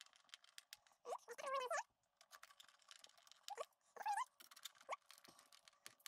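Small motherboard screws being driven into a 2011 iMac's chassis with a screwdriver: faint scattered clicks of tool and screws, with several short squeaks that rise in pitch.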